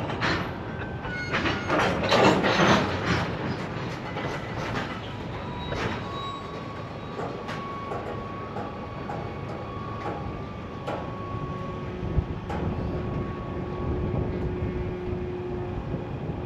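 Freight train cars rolling slowly on yard track: a steady rumble with clanks and clicks, louder in the first few seconds, and a thin steady squeal from about six seconds in, giving way to a lower squeal near the end.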